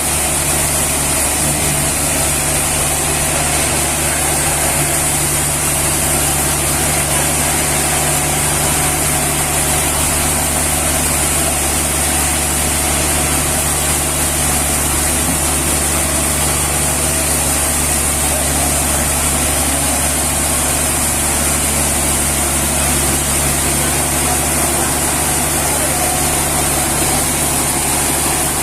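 An engine running steadily at an even speed, with a constant low hum and a high hiss and no change in pitch or level.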